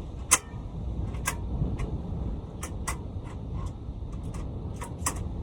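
Irregular sharp clicks and taps, one louder click about a third of a second in, over a steady low rumble.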